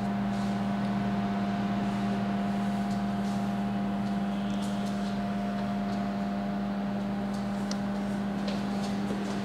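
Steady low mechanical hum of room background, even in level, with a few faint light clicks.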